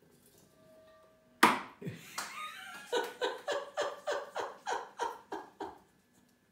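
A wine cork batted out of a bowl by a cat drops and lands with a single sharp knock. A person then laughs in a run of about ten short "ha"s, each falling in pitch.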